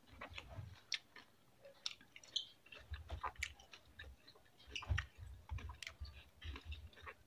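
Close-miked chewing and mouth sounds of a person eating chicken and rice by hand: irregular wet clicks and smacks, with soft low thuds now and then.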